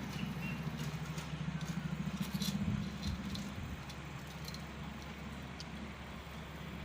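An engine running steadily with a fast, even pulse, loudest for the first three seconds and then fading, with a few light metallic clicks.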